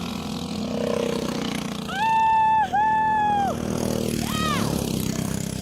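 Vehicle engine drone with two long horn blasts, one right after the other, in the middle, and a short horn-like tone that rises and falls near the end.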